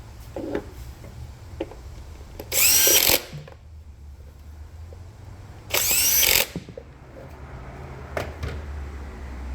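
Cordless power drill run in two short bursts a few seconds apart, each a rising whine as the motor spins up, with a few light knocks of tools between them.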